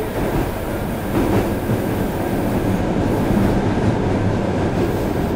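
Onboard running noise of an Osaka Municipal Subway 66 series train: a steady rumble of wheels on rail, with clacking over rail joints.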